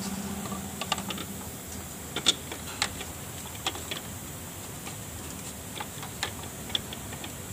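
Light, irregular clicks and knocks of a plastic radiator fan being handled and fitted onto its electric fan motor, about a dozen taps scattered unevenly, the sharpest a little over two seconds in.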